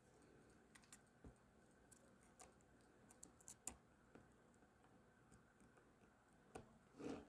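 Faint, irregular small clicks and taps from handling the small parts of a ratcheting screwdriver during reassembly, with a quick cluster of sharper clicks a little over three seconds in and a brief rustling noise near the end.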